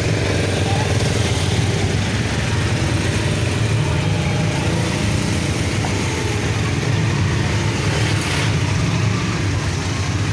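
Auto-rickshaw engine running steadily while the rickshaw drives along, heard from the open passenger seat.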